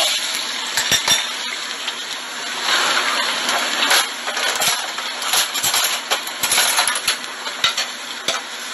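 Metal tongs and utensils clinking against ceramic plates and a small bowl, an irregular run of sharp clicks over a steady hiss.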